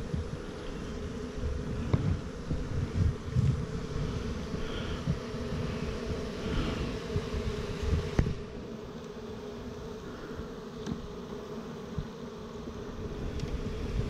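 Honeybees buzzing steadily as a low, even hum over an opened hive. A couple of sharp knocks, one about two seconds in and one just after the middle, come from the wooden hive frames and the hive tool being handled.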